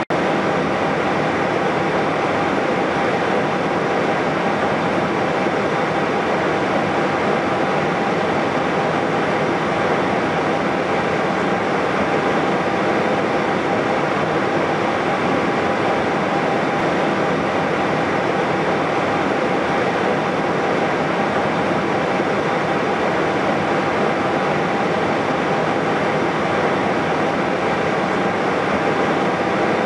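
Steady drone inside an Airbus A320-214 cockpit while taxiing: the engines at idle thrust with the cockpit ventilation fans, and an even whine running through it.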